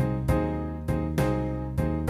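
Slow 12-bar blues backing track playing at about 67 beats a minute, with sustained chords over a swung long-short beat.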